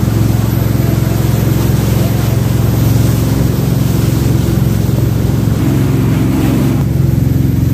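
Jet boat's engine running with a steady drone, under a continuous rushing hiss.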